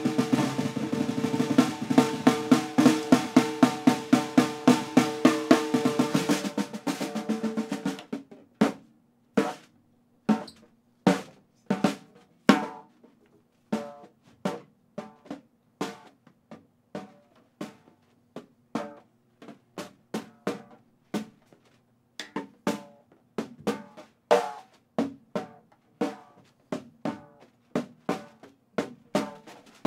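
Snare drum played solo: a fast, dense roll for about the first eight seconds, then separate single strokes at uneven spacing, roughly two a second, each ringing briefly.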